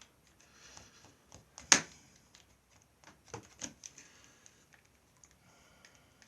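Stanley knife blade cutting small slots through mount card: scattered clicks and light scratching, with one sharp click a little under two seconds in.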